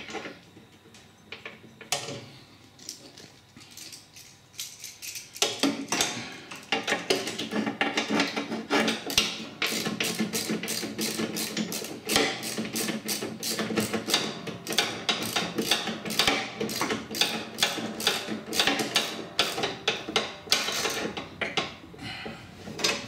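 Hand ratchet wrench clicking in quick repeated strokes as a bolt on a ride-on mower's cutter-deck pulley bracket is tightened. The clicks are sparse at first and come fast and steady from about five seconds in.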